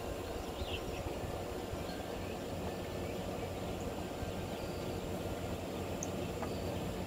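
Steady outdoor background noise with a low rumble, and a few faint, short high chirps from small birds.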